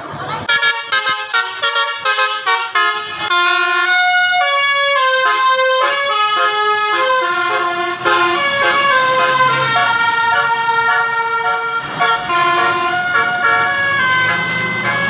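Indonesian telolet bus horn, a set of electric air horns playing a tune: a run of quick short notes, then longer notes sounded together as chords.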